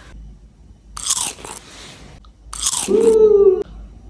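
Loud crunching bites into a small pumpkin-shaped sweet, twice, about a second in and again a little under three seconds in, followed by a short pitched hum-like sound.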